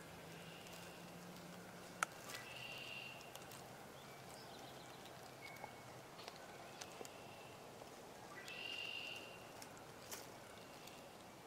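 Quiet woodland ambience with faint bird calls, two short high calls standing out a little after two seconds and again near nine seconds, and a single sharp click about two seconds in.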